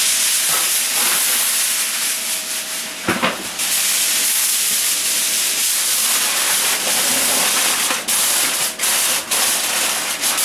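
Aluminium kitchen foil being pulled off the roll and crinkled as it is pressed around a roasting tin: a steady crackling rustle, with one short louder crackle about three seconds in and sharper crackles near the end.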